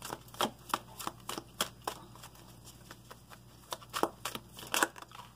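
A tarot deck being shuffled by hand: an irregular run of light card-on-card slaps and clicks, a few of them sharper than the rest.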